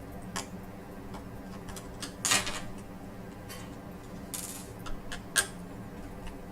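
A magnetic screwdriver working the last small screws out of a laptop LCD panel: scattered light clicks and ticks of metal and plastic, with a few short scrapes.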